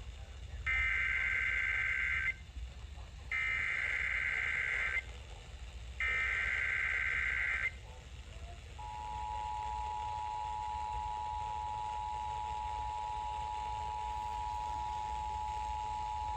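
Emergency Alert System activation: three identical bursts of buzzy SAME header data tones, each under two seconds, followed about a second later by the steady two-tone attention signal, held for about eight seconds.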